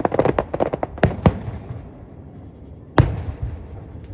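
Fireworks going off: a quick run of crackling pops in the first second, two sharp bangs just after, then one loud bang about three seconds in with a low rumbling tail.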